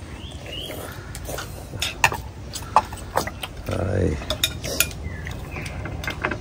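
Metal spoons clinking and scraping against ceramic soup bowls while people eat noodle soup, with scattered sharp clinks. A short, louder eating noise comes about four seconds in.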